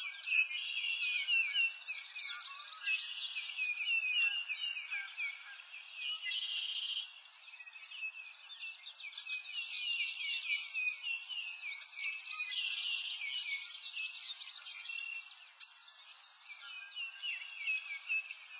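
A chorus of songbirds chirping and trilling, with many quick high notes overlapping and rising and falling in busy waves.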